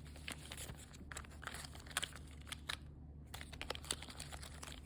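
Crinkling and crackling of plastic cat-treat squeeze tubes and their packaging being handled and rummaged through, with many small irregular clicks and rustles.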